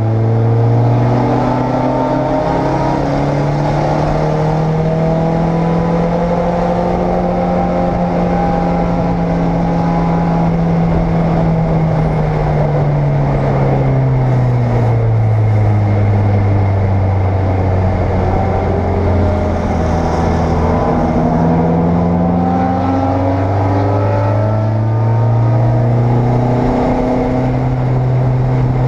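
Race car engine heard from inside the cockpit, running hard at speed. Its pitch climbs early and holds, drops off and stays lower for several seconds in the middle, then climbs again near the end.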